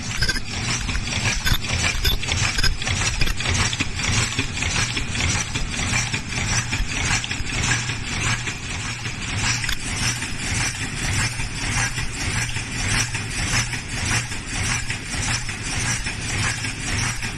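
Automatic three-layer face mask machine running at high speed: a fast, steady mechanical clatter over a low hum.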